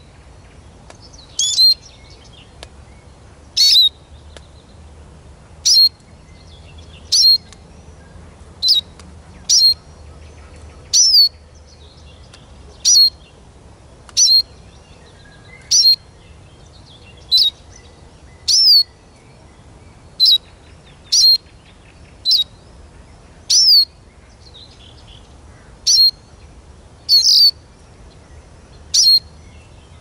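Caged Eurasian siskin calling: short, high call notes repeated every one to two seconds, many of them sliding down in pitch.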